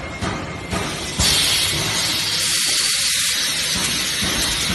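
Square aluminium cup sealing machine running: a few light mechanical clicks and knocks, then a loud steady hiss sets in sharply about a second in and keeps going.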